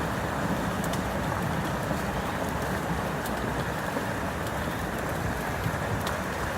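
A strong flash flood in a desert wadi: fast floodwater rushing steadily down the channel, with no break.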